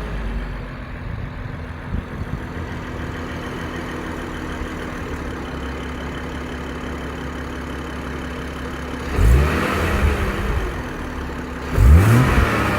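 BMW M140i's turbocharged straight-six idling steadily, then blipped twice, about nine and twelve seconds in. A rattle from the exhaust comes in with the revs.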